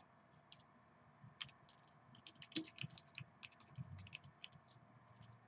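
Faint typing on a computer keyboard: a quick, uneven run of key clicks that starts about a second and a half in and goes on until near the end.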